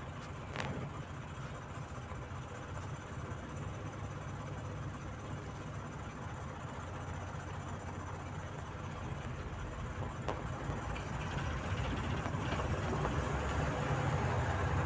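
Volzhanin-5270 city bus engine running steadily at low revs, heard from inside the passenger cabin, getting somewhat louder over the last few seconds.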